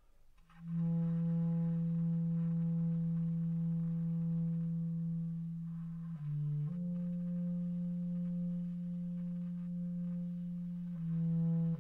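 Solo bass clarinet playing slow, long-held low notes: one note held for about five seconds, a brief lower note just after six seconds in, then another long held note and a new note near the end.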